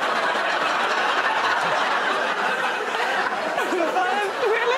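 Studio audience laughing steadily, many voices together, with a single voice rising out of it near the end.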